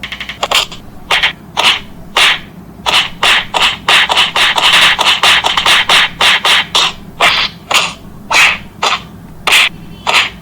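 Cartoon fight sound effects: a rapid, uneven run of short scuffing hits, about three a second, that cuts off sharply at the end.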